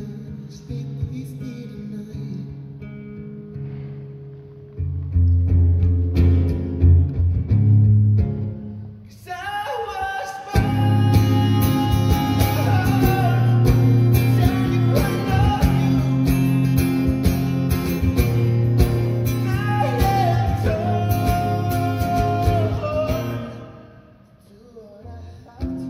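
Amplified acoustic guitar played on stage, alone at first; from about ten seconds in a voice sings over it without words being caught, and the music fades down near the end.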